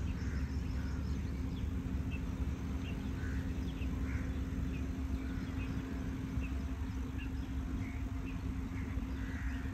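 Outdoor background noise: a steady low rumble and a constant hum, with short faint bird chirps every second or so.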